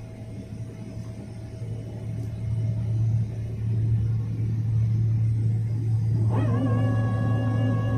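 Airliner cabin noise while taxiing: a steady low jet-engine and airframe rumble that grows louder a few seconds in. Past the middle, a steady humming tone with many overtones comes in and holds.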